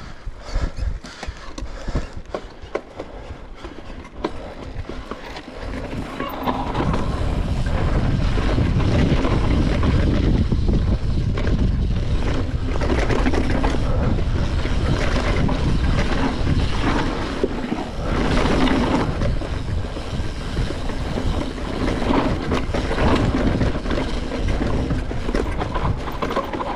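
Cross-country mountain bike riding a rough dirt trail: tyre rumble and rattling of the bike over the ground. It begins quieter with scattered clicks and clatter, then turns into a louder, steady rumble after about six seconds as the bike picks up speed on the descent.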